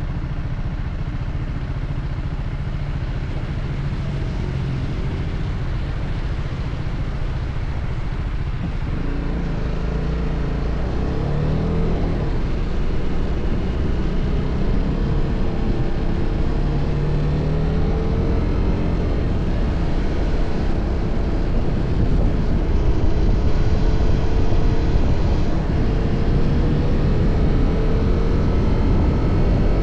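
TVS Apache RR310's single-cylinder engine through its stock exhaust, running low and steady, then pulling away about nine seconds in. Its note rises again and again through the gears and grows louder.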